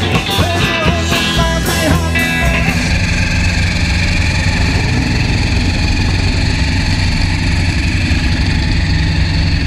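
Rock guitar music for the first few seconds, then the supercharged V8 of a mid-1950s Chevrolet wagon idling steadily.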